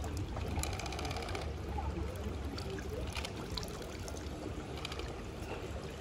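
Pool water trickling steadily, with a low rumble underneath.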